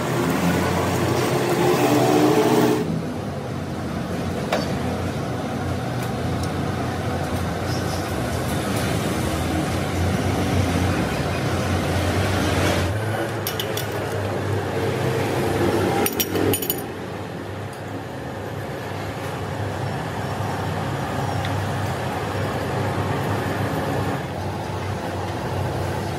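Machine-shop machinery running with a steady low hum and a few sharp metallic clicks; the sound changes abruptly about 3, 13 and 17 seconds in.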